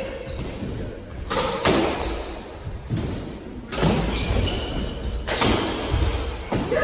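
Squash doubles rally: the ball cracks off racquets and the court walls in a series of sharp knocks that ring in the court, with short high squeaks from players' shoes on the hardwood floor.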